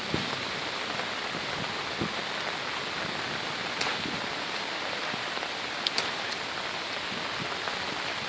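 Steady rain falling, an even hiss, with a few sharp ticks of single drops about four and six seconds in.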